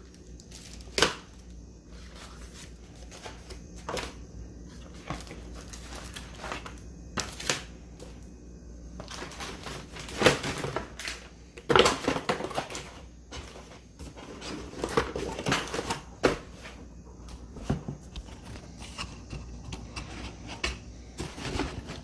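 Motherboard box and its packaging being handled and opened: scattered clicks, taps and rustling, with a few louder scrapes.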